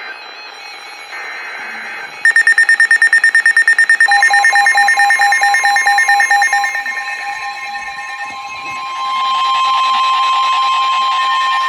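Emergency Alert System header for a new severe thunderstorm warning: screechy data bursts first, then rapid electronic alarm beeping from about two seconds in, then from about nine seconds a single steady, piercing warning alarm tone of the NOAA Weather Radio kind.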